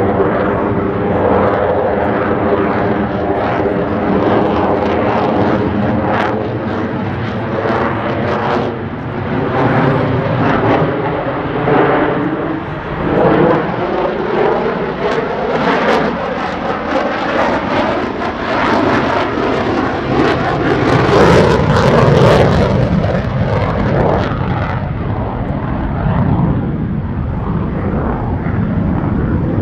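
F-35A Lightning II fighter's Pratt & Whitney F135 turbofan jet engine, loud throughout as the jet flies its aerobatic display. A shifting tonal roar comes with a rasping crackle, which is loudest a little past the middle.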